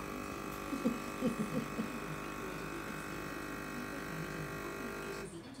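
A steady electric buzz with many overtones, lasting about five seconds and cutting off suddenly; a voice is faintly heard over it about a second in.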